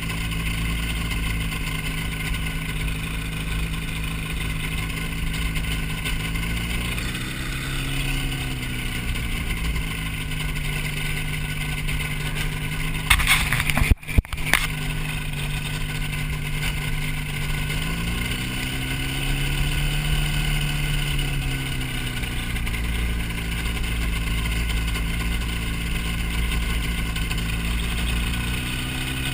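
Hy-Tek Hurricane ultralight's engine running steadily in flight over a low rush of wind, its note swelling up and back down twice. About halfway through there is a brief loud crackle with momentary dropouts.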